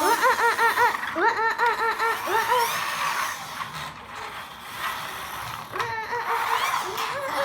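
Young child laughing in a quick run of high giggles, with a few more giggles near the end.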